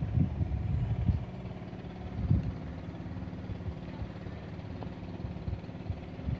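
An engine running steadily at idle, with low gusts of wind buffeting the microphone now and then.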